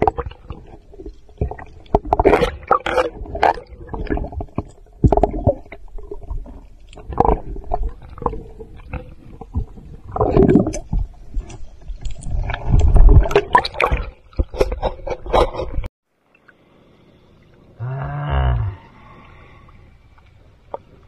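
Water splashing and sloshing around a camera at the surface, mixed with a diver's heavy breathing through a snorkel, in loud irregular bursts. The sound cuts off suddenly about sixteen seconds in, and a short muffled groan follows a couple of seconds later.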